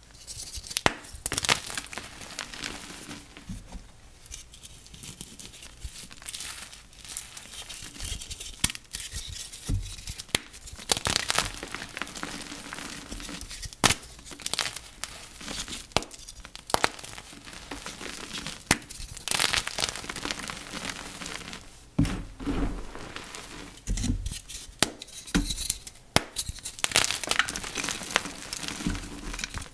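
Flaky dyed gym chalk being crushed, an irregular run of soft crinkling crunches with sharp snaps every second or two.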